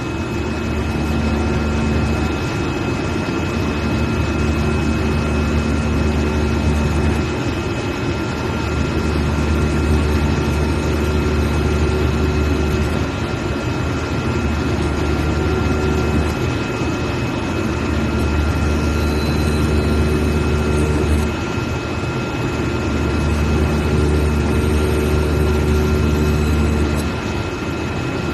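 CNC servo knife cutting machine running: a steady high whine throughout, under a low hum that swells and drops back in stretches of a few seconds as the machine moves through the cut.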